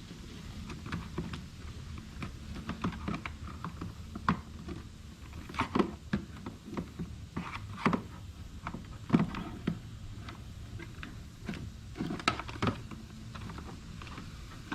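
Irregular clicks and knocks of hard plastic pressure-washer parts being handled and fitted together by hand, a few sharper knocks among lighter taps.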